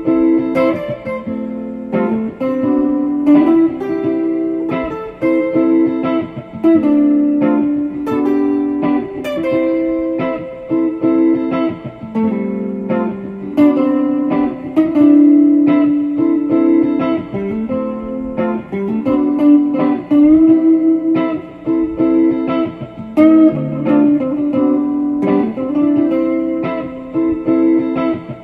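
Background music: a plucked guitar instrumental, notes picked in quick succession.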